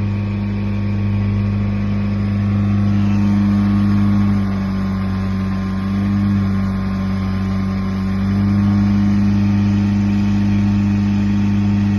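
Engine of a Ditch Witch FX60 vacuum excavator running steadily, with a slight dip in pitch a few seconds in and again near the middle as it takes a little load.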